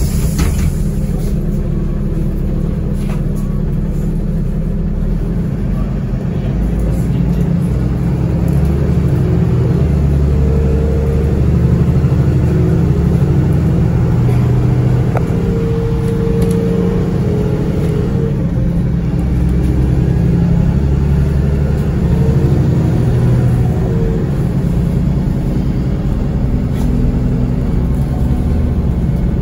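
A NefAZ-5299 city bus under way, heard from inside the cabin: a steady low engine and road rumble that grows louder about eight to ten seconds in, with a faint whine near the middle.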